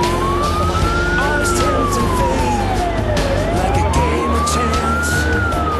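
Fire engine siren wailing, one tone sliding slowly up over about two seconds and back down over two, again and again, with the truck's engine running beneath it, heard from inside the cab.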